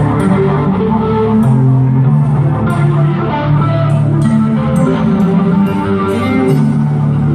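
Live rock band playing, heard from the audience in an arena: sustained bass and guitar notes under scattered drum and cymbal hits.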